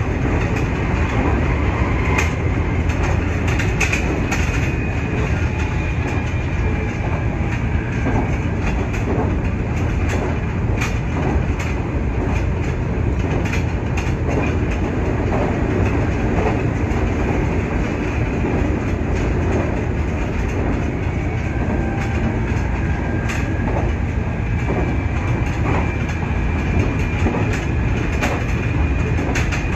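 Nankai 8300 series electric train running steadily at speed, heard from inside the leading car: a continuous rumble with irregular clicks and clacks of the wheels over rail joints.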